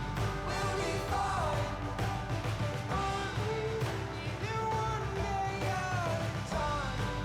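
Background music: a song with a singing voice over instruments and a steady bass line.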